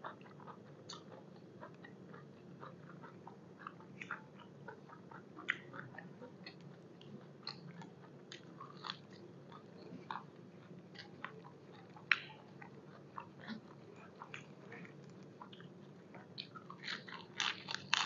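A person chewing crunchy food from a plate of beef tripe salad with fresh vegetables: irregular crisp crunches and wet mouth sounds, getting denser and louder near the end as a fresh bite goes in.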